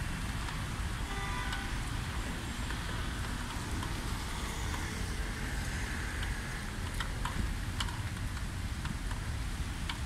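Wind buffeting the microphone as a steady low rumble, with a few sharp clicks about seven seconds in.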